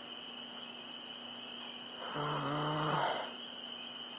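A bullfrog gives one low, droning call about two seconds in, lasting about a second, over a steady high-pitched chorus of night insects.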